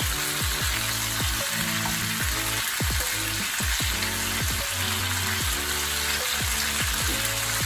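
Mackerel frying in a pan with onion, tomato and ginger: a steady sizzle that does not let up, meant to take off the fishy smell. Background music with a regular beat plays under it.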